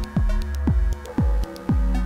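Elektron Model:Cycles groovebox playing a sequenced electronic beat: a kick drum that drops in pitch about twice a second, short high ticks between the kicks, and held low bass notes.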